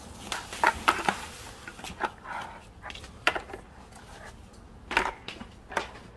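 Small metal food cans knocking and clinking as they are set down on a tile floor and stacked on top of one another: a run of short, irregular knocks, louder about a second in, near the middle and again near the end.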